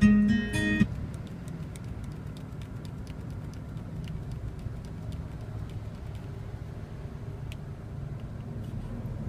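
A loud pitched tone sounds for under a second at the start. Then the low, steady rumble of a 2001 Toyota Corolla running is heard from inside the car, with faint scattered clicks.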